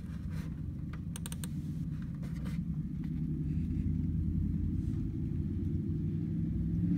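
Low engine rumble of a loud pickup truck, slowly growing louder as it approaches. A short run of sharp clicks comes about a second in.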